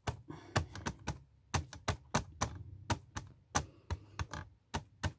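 Ink pad dabbed repeatedly onto clear stamps mounted on a stamping platform, inking them: a quick, uneven run of light plastic taps and clicks.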